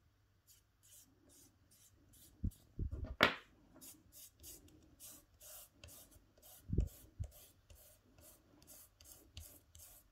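Fingers rubbing over a foamiran leaf on a wooden tabletop in short repeated strokes, about three a second. One louder scrape comes about three seconds in, with a few dull knocks on the table around it and again past halfway.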